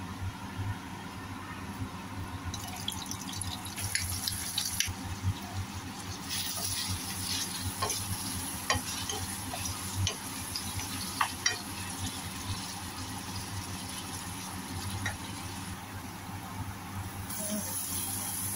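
Chopped onions frying in oil in a pan, sizzling, with a wooden spoon stirring them and tapping against the pan now and then. A low steady hum runs underneath.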